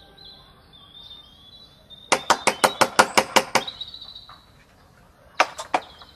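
Knocking on a heavy studded wooden door: a quick run of about nine knocks, then a short burst of three more about two seconds later.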